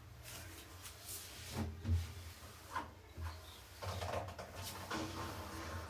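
Scattered light knocks and rubbing from handling a Hisense washing machine, over a low steady hum.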